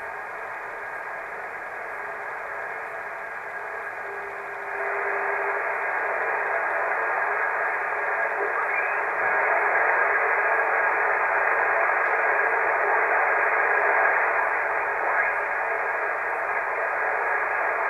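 HF amateur radio transceiver receiving single-sideband on the 20 metre band while being tuned down the band: a steady static hiss through its speaker, the band noise of a stretch with no stations heard. A brief steady whistle appears about four seconds in, and the hiss gets louder about five seconds in.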